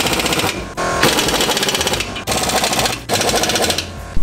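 Pneumatic impact wrench hammering in four bursts as it runs down and tightens the rear leaf-spring U-bolt nuts over the lowering blocks.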